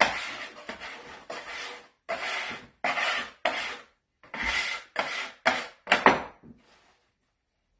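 Metal bench scraper scraping flour and stuck dough off a wooden pastry board in about a dozen quick rasping strokes. The strokes stop about a second before the end.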